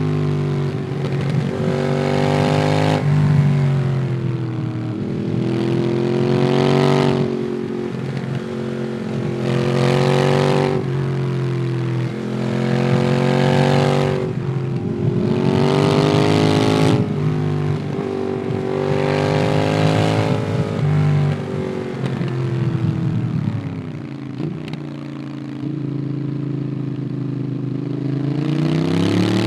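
Ducati Monster 821's 821 cc L-twin through a QD Twin Gunshot exhaust, heard while riding. It accelerates hard again and again, the note climbing and then falling away between pulls. It runs quieter and lower for a few seconds near the end, then begins to rise again.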